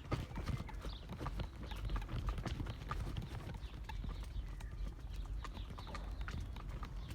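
Footsteps on a walking path, an irregular run of sharp clicks and scuffs, over a steady low wind rumble on the microphone.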